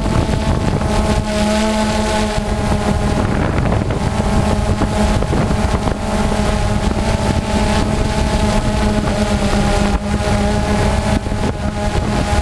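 FPV quadcopter's motors and propellers running at a steady pitch, with a rush of wind on the microphone.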